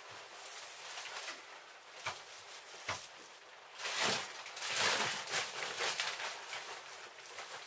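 Plastic sack rustling as coal is taken out to fill a metal coal scuttle, with two sharp clicks about two and three seconds in.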